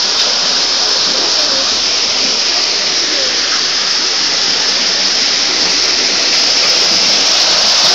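Small waterfall pouring down between boulders: a loud, steady rush of falling water.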